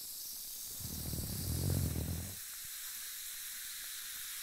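Steady faint hiss of a binaural voice recording. A low, muffled rumble starts about a second in and lasts about a second and a half.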